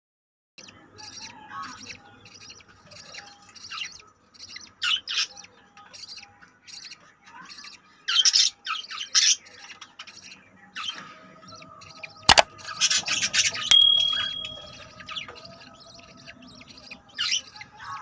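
Budgerigars chirping: a run of short, quick chirps with a few louder scratchy bursts, and one sharp click about midway.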